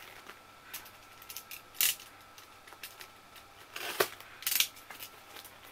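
Utility knife (box cutter) slicing through the packing tape and cardboard of a box: several short, scratchy strokes, the loudest about two and four seconds in.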